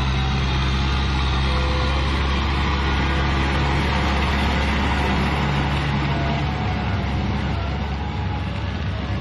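Kubota M6040SU tractor's four-cylinder diesel engine running steadily under load as it drives a rotary tiller through wet paddy mud.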